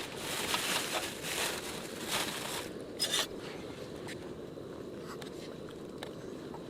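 Several scraping, crunching rustles in the first three seconds, the last and sharpest about three seconds in, over a steady low background noise.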